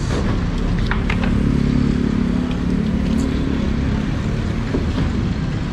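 Steady low rumble of a motor vehicle engine, with a few sharp wooden knocks about a second in as empty wooden crates are handled and stacked.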